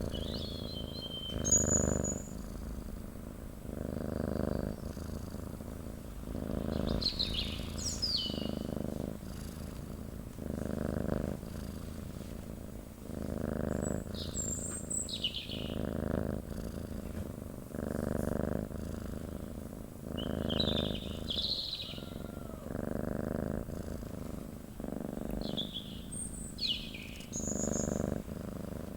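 Domestic cat purring in a steady rhythm of low pulses, roughly one a second, with birds chirping now and then above it.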